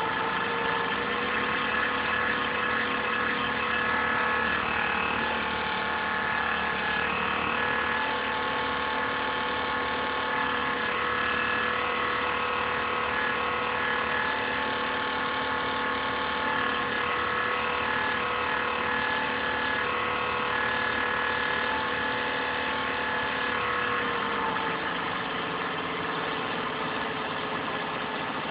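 INSYS GameForce laptop cooling fan running with a strange whining noise made of several steady tones, somewhat distorted by the phone microphone. Its pitch steps up slightly about a second in and drops back a few seconds before the end.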